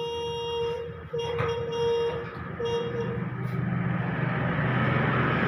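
Vehicle horn honking in three steady blasts, the first two longer and the last short, followed by a vehicle engine that grows louder.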